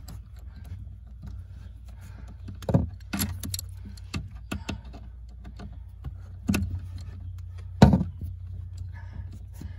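Socket, extension and ratchet clinking and knocking in scattered metallic clicks as the new M10 triple-square pinch bolt is run into the intermediate steering shaft's universal joint. The loudest knock comes near the end, over a steady low hum.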